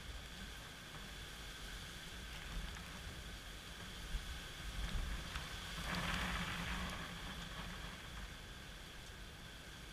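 Gusty hurricane wind and steady rain: the wind buffets the microphone with a rumble under the hiss of falling rain, and a louder rush of wind and rain comes about six seconds in.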